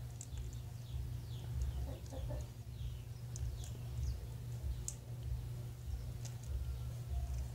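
Birds chirping in short falling calls again and again, with a brief lower clucking call about two seconds in, over a steady low rumble.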